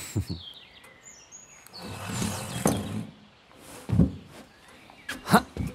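Small birds chirping in the background, with several dull thumps and a spell of rustling around two seconds in; the loudest thump comes near the end.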